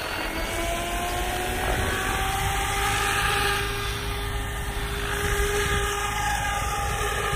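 SAB Goblin Black Thunder electric RC helicopter spooling up and lifting off: the motor and rotor whine rises in pitch over the first two seconds as the head speed comes up, then holds a steady whine as it hovers and flies.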